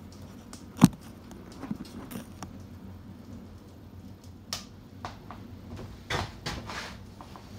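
Handling noises while working the baize cloth over the pool table's edge: one sharp knock about a second in, then scattered softer knocks and rustles, with a cluster of them a little after the middle.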